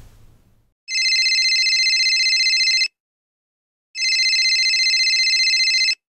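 A telephone rings twice, each ring a fast trill about two seconds long, with a pause of about a second between them. A low rumble fades out during the first half second before the first ring.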